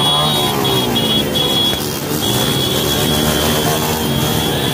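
Motorcycle engines and a dense street crowd, with a steady shrill high tone over them that breaks off briefly a few times in the first two seconds.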